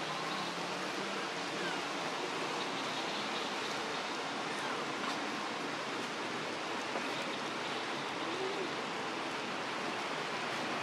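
Steady noisy forest ambience, like a continuous hiss, with a few faint short high calls scattered through it.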